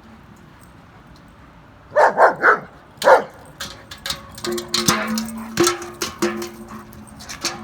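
A dog barks about four times in quick succession. Then a steady low two-note tone sounds in several short stretches, mixed with clicks and rattles.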